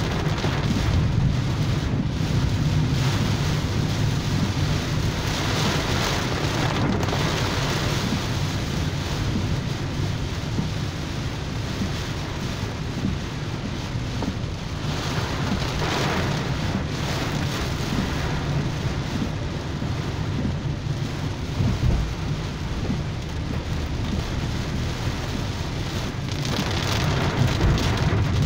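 Heavy rain falling on a moving car's roof and windscreen, heard from inside the cabin, as a steady hiss over a constant low rumble of the car running on the wet road.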